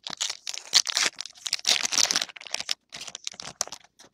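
A trading card pack's wrapper being torn open and crinkled by hand: a dense run of crackling rustles, then a few separate crinkles near the end.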